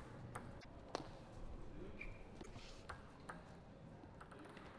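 Scattered sharp, irregular ticks of table tennis balls bouncing, over faint hall noise.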